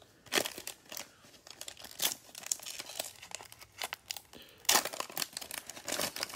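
Cellophane wrapper of a trading-card cello pack crinkling and being torn open in gloved hands, a run of sharp crackles with a louder burst of tearing about five seconds in.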